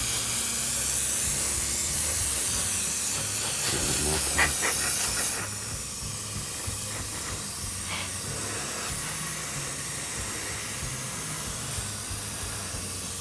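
Airbrush hissing as it sprays silver paint and blows air over freshly painted model parts to dry them; the hiss drops to a softer level about five seconds in.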